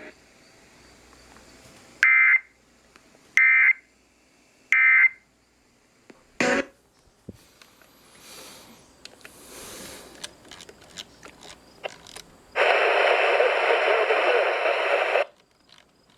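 Three short, loud data bursts about a second and a half apart, the screechy EAS/SAME end-of-message tones that close the warning. A sharp click follows, then faint scattered noises. Near the end comes a loud hiss of noise lasting about two and a half seconds.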